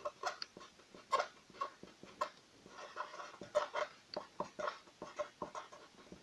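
Felt-tip marker squeaking and scratching across paper in quick, short, irregular strokes as a few words are handwritten.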